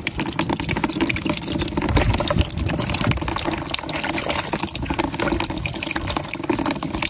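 Water splashing and sloshing in a plastic basin as hands swish and scrub scorpions in muddy water.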